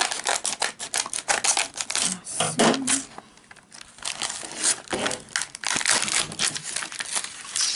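Clear plastic wrapper of a card pack crinkling and rustling as it is snipped open with scissors and the contents are pulled out, with a quieter lull about three seconds in.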